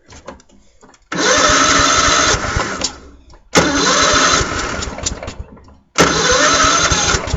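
Craftsman lawn tractor engine being cranked by its electric starter on jump-starter power, three separate tries of about two seconds each, each stopping without the engine catching.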